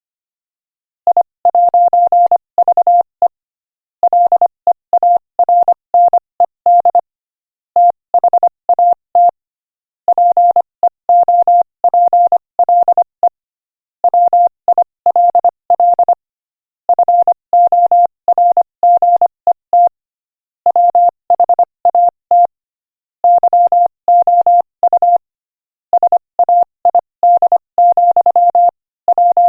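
Morse code sent at 25 words per minute as a single steady mid-pitched beep, keyed rapidly into dots and dashes. The beeps come in word-length clusters separated by short pauses, beginning about a second in.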